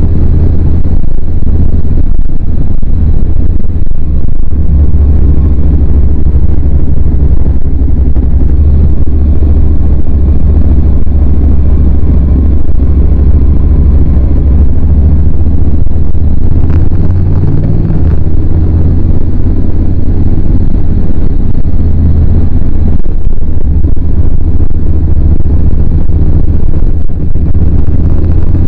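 Honda NC700X's 670 cc parallel-twin engine running as the motorcycle is ridden, a steady low drone. The engine note steps in pitch about seventeen seconds in.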